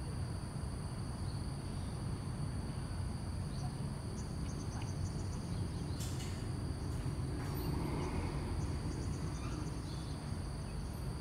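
Insects chirring steadily at two high pitches over a low outdoor rumble, with a single sharp click about six seconds in.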